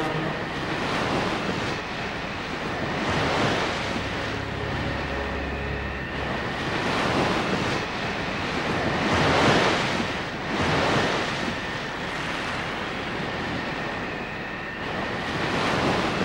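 Sea surf with wind: waves rushing and breaking in slow swells, the biggest surges about three and a half and nine and a half seconds in.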